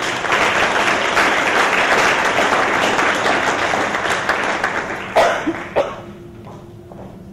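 Audience applauding, a steady wash of clapping that thins out and dies away about six seconds in, with two sharp louder sounds just after five seconds as it fades.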